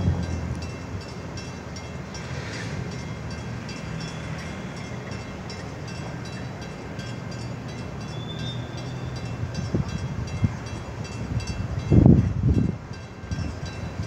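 Steady low drone of a stopped car's engine idling, heard from inside the car, with brief gusts of wind rumbling on the microphone about twelve seconds in.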